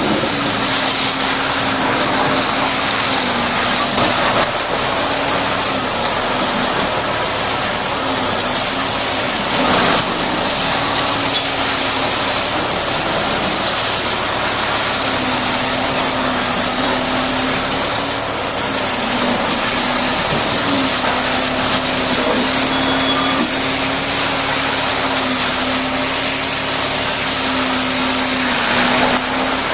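Caterpillar D8T bulldozer's diesel engine running steadily, with a wavering hum under a broad mechanical hiss and a few brief knocks.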